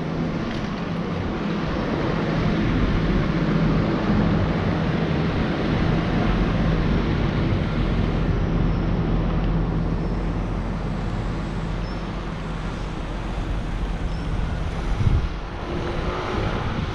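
Steady rushing noise of wind on a moving bicycle's camera microphone, mixed with the bicycle's tyres rumbling over brick pavement, with one brief knock about fifteen seconds in.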